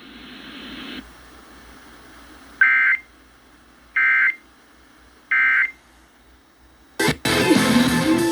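Emergency Alert System end-of-message signal heard over a radio: three short, identical digital data screeches about a second and a half apart, marking the end of the tornado warning. Near the end the station's music comes back in loudly.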